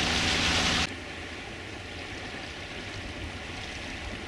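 Sailboat motoring: a loud rush of water from the wake over a steady engine hum. Under a second in it cuts off suddenly to a much quieter, even wash of water and wind as the boat sails.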